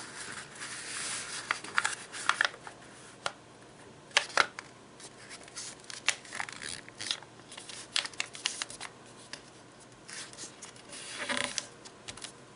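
A square sheet of paper being folded by hand: irregular rustling and crinkling as a corner is turned over, with short, sharp scrapes as fingers press the crease flat against the table.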